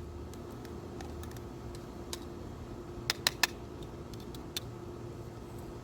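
Spoon stirring rice in a metal cook pot of boiling water, with light clicks against the pot and three sharp clinks close together about three seconds in, over a steady low background hum.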